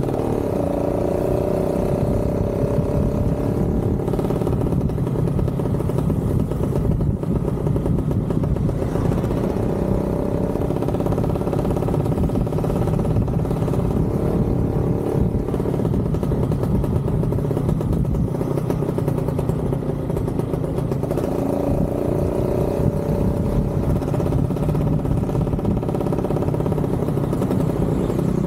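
Motorcycle engine running under way, with wind noise over the microphone; the engine pitch shifts shortly after the start and again about two-thirds of the way through.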